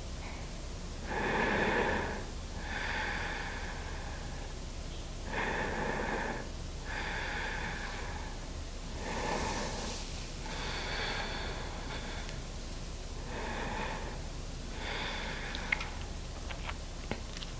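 A woman breathing slowly and audibly, hissing inhales and exhales in turn, about one full breath every four seconds. A few small clicks come near the end.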